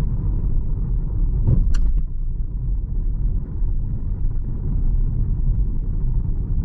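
Low road and tyre rumble inside the cabin of a GWM Ora electric car driving on a rough back road, with a brief knock about one and a half seconds in.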